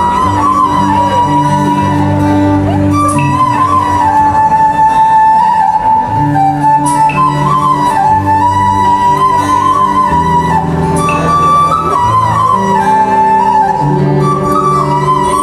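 A small flute held upright playing a slow, ornamented melody with slides and quick turns between notes, over live band accompaniment of strummed acoustic guitar and long held bass notes.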